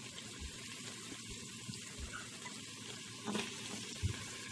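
Onion and garlic sizzling gently in oil in the steel inner pot of an Instant Pot on its sauté setting: a steady hiss, with two light knocks near the end.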